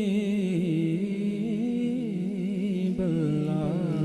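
A man singing a naat into a microphone, drawing out long wavering notes with ornamented turns rather than words. A few soft low thumps come near the end.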